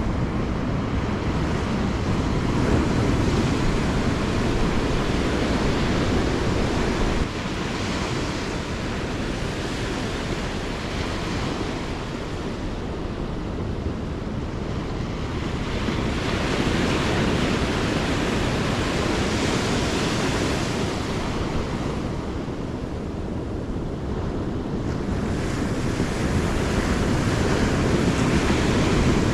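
Ocean surf breaking and washing up a sandy beach, swelling and fading over several seconds at a time, with wind rumbling on the microphone.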